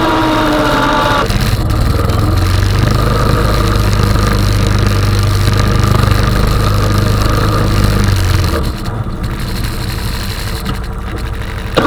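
Honda 420 ATV's single-cylinder engine running steadily under load while plowing snow, with a higher whine at the start. It eases off and goes quieter about three-quarters of the way through, then picks up again right at the end.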